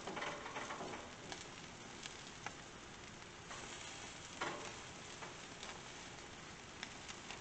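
Marinated snapper fillets sizzling on a hot gas-grill grate as they are turned with metal tongs, with a few light clicks and scrapes of the tongs on the grate. The sizzle swells briefly at the start and again about four seconds in, as fillets are lifted and laid back down.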